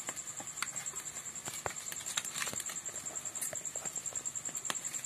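Scattered small clicks, taps and crackles as firewood is pushed and shifted in a wood-fired clay chulha, over a cricket's steady high trill.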